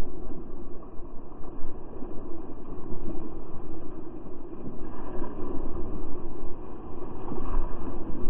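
Whitewater rapids rushing around a kayak, with waves breaking over its deck, picked up by a camera on the boat as a low, steady rush. Heavier splashes swell up about five seconds in and again near the end.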